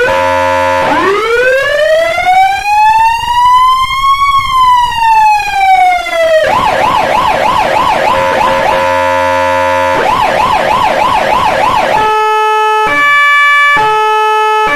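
Federal Signal AS-380 electronic siren stepping through its tones: a brief horn blast, one slow wail rising for about four seconds and falling, a fast yelp, another short horn blast, more yelp, then a hi-lo two-tone alternating under a second per note near the end.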